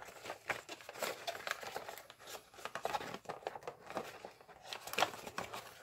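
Origami paper rustling and crinkling faintly as it is handled and folded, heard as a scatter of small crisp crackles as the pleats are pinched and creased by hand.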